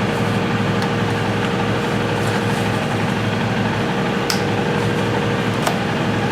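A machine running steadily: an even drone with a constant whine, and a couple of light clicks about four and five and a half seconds in.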